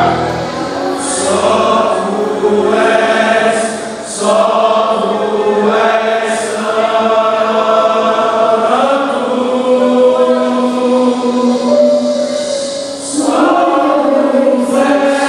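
Choir singing, with long held notes.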